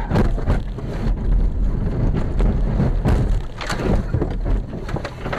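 A car crashing off the road: a run of heavy bangs and thumps as it is knocked off course and bounces through rough ground, over a loud rumble, easing off near the end.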